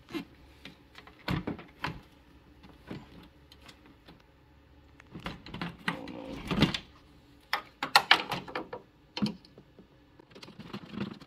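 Irregular clicks, taps and knocks of a socket on an extension and a plastic aftermarket headlight housing as the housing is worked into a Dodge Ram's front corner and its mounting bolt is started. The clatter is busiest a little past the middle.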